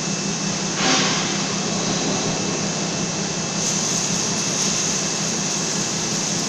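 Steady hum and hiss of a submerged-arc welding gantry at work, with a brief louder rush about a second in and the hiss growing brighter after about three and a half seconds.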